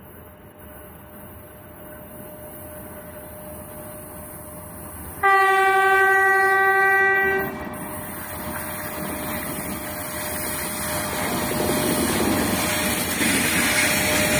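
A 3ES5K Ermak three-section electric locomotive hauling a freight train sounds one long horn blast about five seconds in, lasting about two seconds. The rumble of the approaching train grows steadily louder until the locomotive passes near the end.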